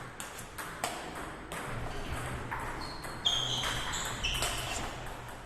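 Table tennis balls clicking sharply and repeatedly on tables and bats, in a rapid irregular patter of many strikes. A few short high squeaks come about three to four and a half seconds in.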